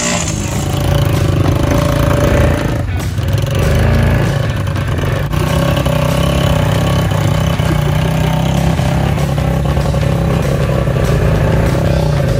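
ATV engines running at a steady drone while riding, held at a fairly constant throttle.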